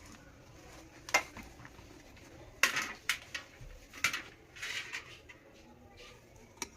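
Metal utensils clinking and scraping against a cooking pot: a handful of separate sharp clicks with a couple of short scrapes between them.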